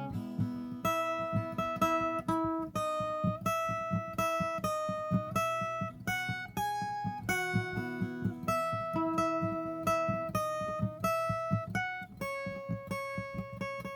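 Viola caipira (Brazilian ten-string folk guitar) playing a solo melody of held single notes over a steady rhythmic plucking of the lower strings.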